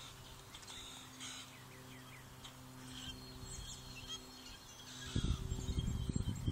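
Small birds chirping and calling in short scattered notes over a steady low hum. About five seconds in, a loud, ragged low rumbling hits the microphone and drowns out the rest.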